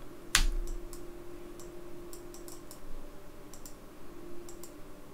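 Computer mouse clicks: one sharp, louder click about a third of a second in, then a scatter of light clicks.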